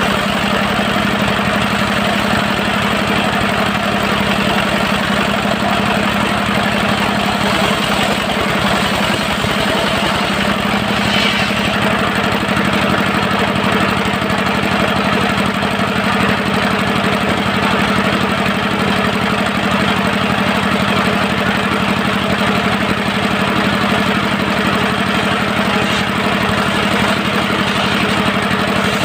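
Dongfeng diesel engine of a portable circular-saw sawmill running steadily at a constant speed.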